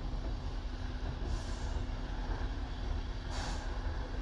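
The C11 207 steam tank locomotive moving slowly, with a low rumble and two sharp hisses of steam about two seconds apart.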